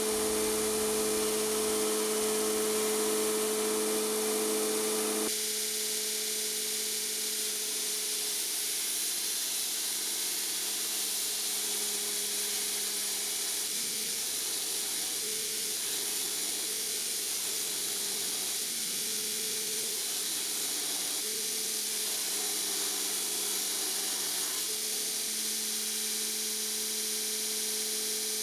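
Steady hissing noise over a low hum, which changes abruptly about five seconds in.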